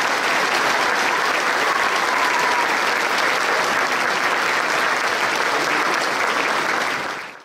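Audience applauding steadily, a large crowd clapping; the applause fades out quickly near the end.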